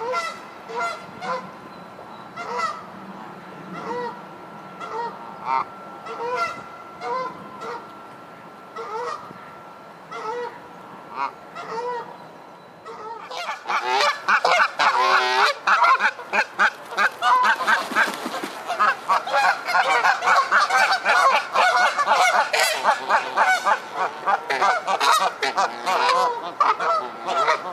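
Canada geese honking in a squabble. About the first thirteen seconds hold single honks spaced a second or so apart. Then the honking turns much louder and comes in a dense, unbroken run.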